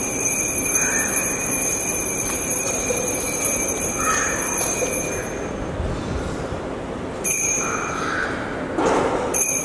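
Altar bell rung at the elevation of the host during the consecration of the Mass, signalling the consecrated bread raised for the congregation. It rings steadily at a high pitch, stops about five seconds in, and is rung again for a couple of seconds near the end.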